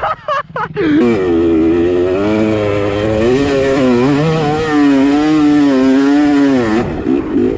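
Dirt bike engine close up from the rider's own bike, revving hard up a steep sand hill: a second of choppy on-off throttle blips, then one long pull with the revs rising and falling, backing off near the end.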